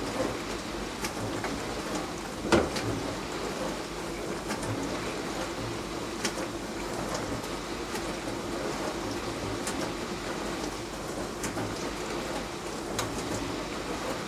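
Beko DWD5410W dishwasher running its wash cycle: water spraying and splashing inside the tub over the steady hum of the wash pump, with small ticks and one sharper knock about two and a half seconds in.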